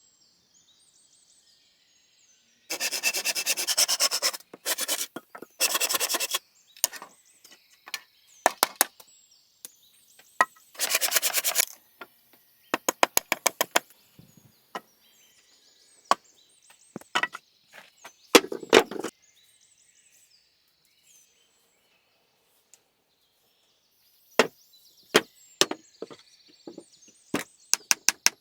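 Wood being worked with a hand tool: bursts of quick, evenly spaced scraping strokes, a few seconds at a time, separated by pauses and single knocks.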